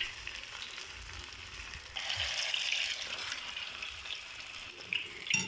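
Grated-potato portions frying in hot oil in a pan: a steady sizzle that grows louder for about a second around two seconds in. A short click near the end.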